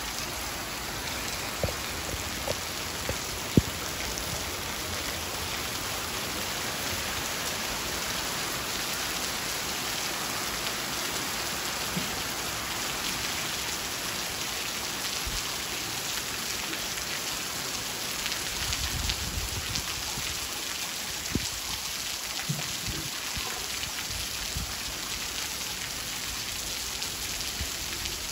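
Steady rain falling on a paved street and roofs, an even hiss, with a few sharp taps in the first few seconds.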